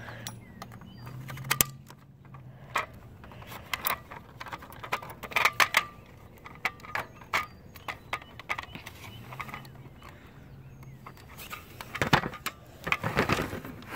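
Irregular metal clicks and clinks of a fire alarm pull station being handled and opened by hand.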